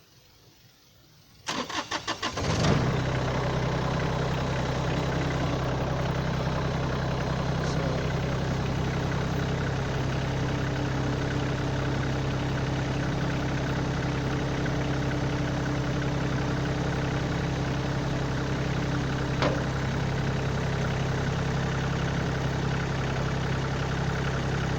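Kioti compact tractor's diesel engine cranked by the starter for about a second, catching about two and a half seconds in and then idling steadily.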